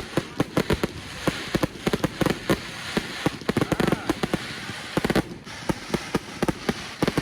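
Fireworks display: a rapid, irregular volley of sharp bangs, several a second, over a continuous crackle.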